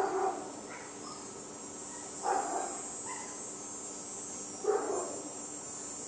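Dog barking three times, about two and a half seconds apart, over a steady high-pitched hiss.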